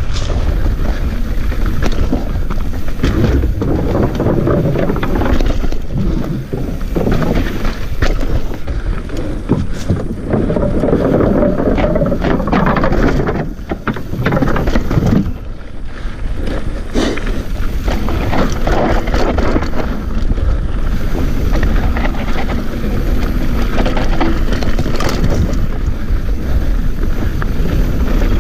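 Mountain bike descending fast over a rough dirt and rock trail: continuous wind rush on the microphone and tyre rumble, with frequent rattling knocks from the bike over bumps.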